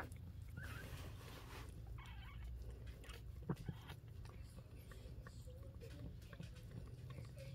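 Newborn puppies nursing on their mother, giving faint, wavering squeaks and mewls. A single short knock about three and a half seconds in.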